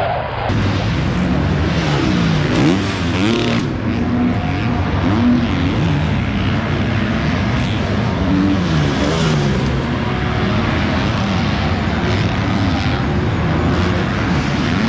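Several motocross bikes racing past on the track, their engines revving up and down and overlapping one another.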